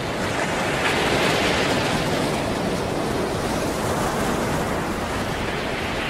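Ocean surf: a steady rush of waves washing.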